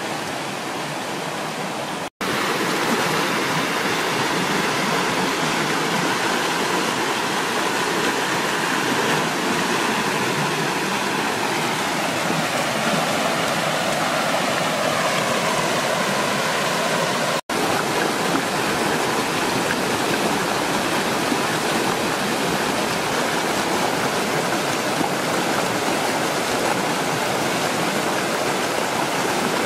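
Shallow rocky river rushing over stones: a loud, steady rush of running water, churned by a person wading and swimming through the current. The sound cuts out for an instant twice, about two seconds in and again past the middle.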